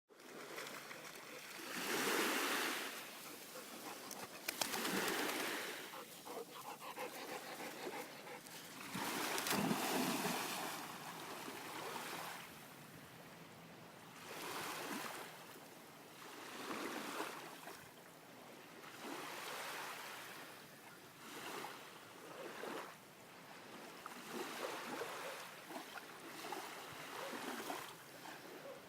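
Water splashing and small waves washing at a beach shoreline, coming in repeated surges every two to three seconds, loudest about two and ten seconds in.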